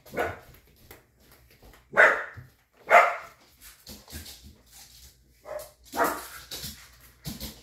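A dog barking in short, sharp barks, the two loudest about two and three seconds in and a few more near the end.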